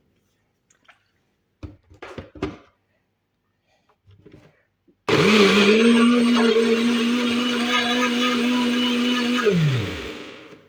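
Countertop blender blending orange, ginger and water: it starts abruptly about halfway in and runs loud at a steady pitch, then is switched off and winds down with a falling pitch near the end. A few light knocks come before it.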